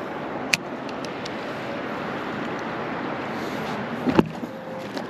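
Steady rushing of river water, with a sharp click about half a second in and a short double knock about four seconds in.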